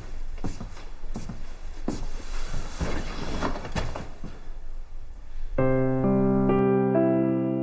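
Scattered soft knocks and rustles for about five seconds, then a piano comes in with slow sustained notes as background music.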